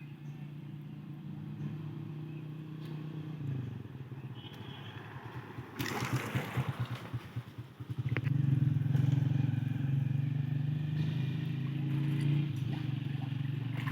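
A small engine running steadily. About six seconds in there is a short noisy rush, and from about eight seconds in the engine runs louder.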